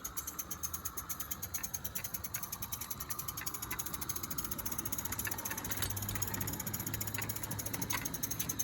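Accucraft Cranmore Peckett live steam model locomotive running, its exhaust beating in rapid, even chuffs with a few light clicks over them.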